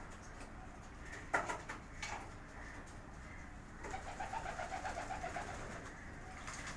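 Homing pigeons bathing in a shallow basin of water, with soft cooing: a sudden loud flap or splash about a second in, then a rapid fluttering of wings in the water for about a second and a half.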